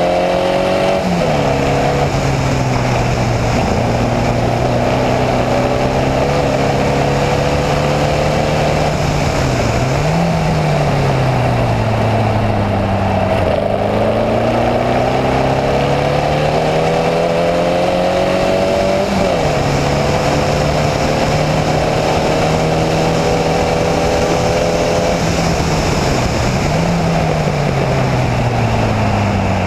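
Onboard sound of a Formula Vee's air-cooled Volkswagen flat-four racing engine under hard use. The engine pitch climbs steadily and drops sharply at gear changes about a second in, about four seconds in and near twenty seconds. It falls away then briefly rises around ten, thirteen and twenty-six seconds, all under constant wind and road noise.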